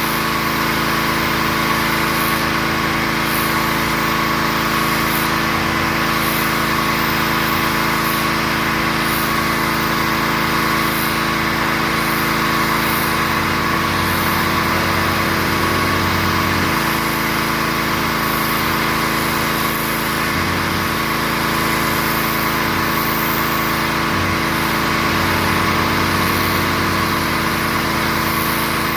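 Gas-engine pressure washer running steadily at an even pitch.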